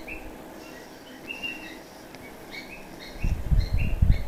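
Cat snoring: quiet at first, then a loud burst of low, fluttering snore about three seconds in. Birds chirp repeatedly in the background.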